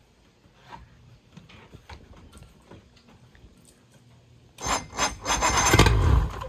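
An old Bayliner boat engine's starter cranking the engine in a rough grinding burst of about two seconds near the end, on a freshly recharged battery, then stopping without the engine running on.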